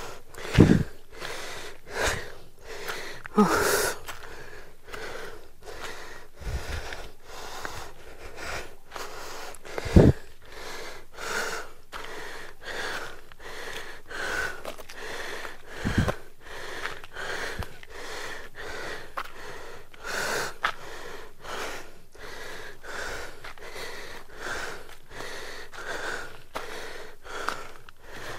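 A man panting hard, out of breath from climbing a steep hill path, about two breaths a second. A few low thumps break in near the start and twice later.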